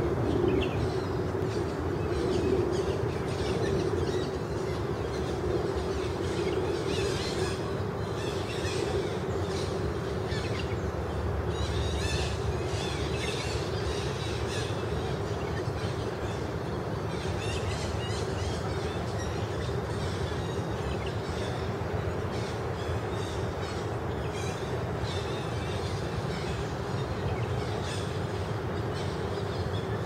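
Outdoor ambience: a steady low drone with birds chirping on and off.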